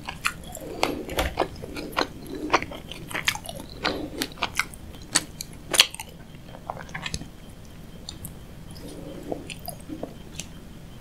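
Close-miked chewing of sushi: wet mouth smacks and clicks, packed close for about the first six seconds, then sparser and softer.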